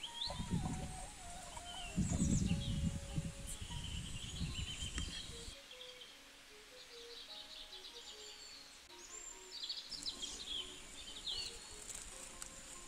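Wild birds chirping and calling in the background, with a steady high insect-like whine. A low rumbling noise runs under them for about the first five seconds and stops abruptly.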